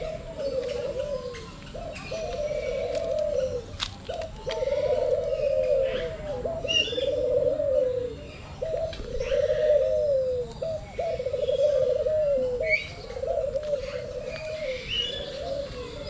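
Pigeons cooing in a long run of low, wavering phrases, each about a second long and following one after another, with scattered high chirps from other birds. There is a single sharp click about four seconds in.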